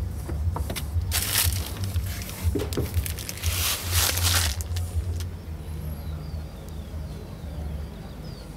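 Plastic protective wrapping in a new truck cab rustling and crinkling as it is handled, in two bursts about a second in and again around three and a half seconds, with a few small clicks over a low, uneven rumble.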